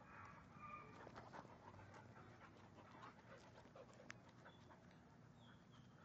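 Two dogs play-fighting, faint panting and scuffling on dirt with many small scattered clicks and scrapes, one sharper click about four seconds in.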